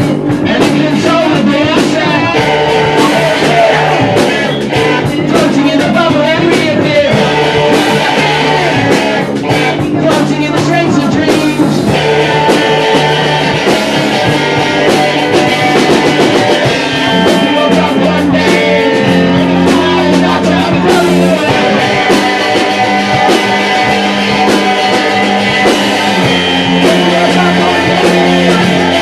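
Live rock band playing a song: electric guitar and drum kit with a singer's vocals over them.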